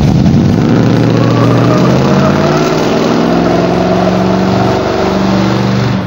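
1971 Dodge Challenger R/T's V8 held at high revs during a burnout, loud and steady with a slight waver in pitch.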